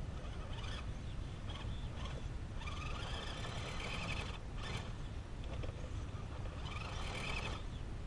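Electric motor and geared drivetrain of an Axial SCX10 Deadbolt RC crawler whining in two short spurts of throttle as it crawls up rock, the second one rising in pitch, over a steady low rumble.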